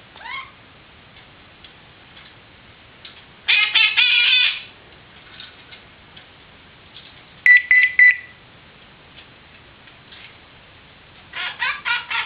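Pet parrot giving three short bursts of rapid, pulsing calls. The middle one is a beeping, ring-like tone, a mimicked cell phone ring.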